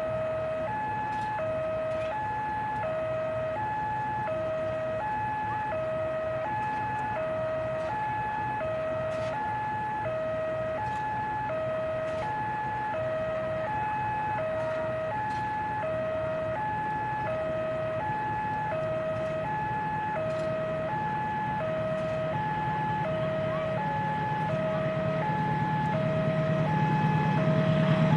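Railway level-crossing warning alarm sounding steadily, a two-tone electronic signal alternating low and high notes about once a second. Near the end the low rumble of an approaching diesel-hauled passenger train grows louder under it.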